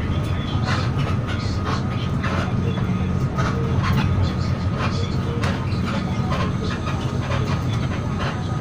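Inside a moving road vehicle: a steady low rumble of engine and road noise, with irregular light rattles throughout.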